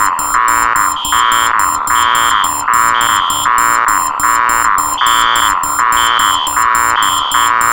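Four electronic alarm sounds layered into one loud, harsh din: pulsing buzzer tones about twice a second, a higher beep coming in about once a second, and rapid high-pitched beeping over them, repeating without a break.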